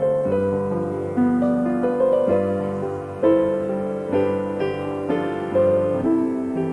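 Slow piano prelude for a church service: chords of held notes, a new chord about once a second.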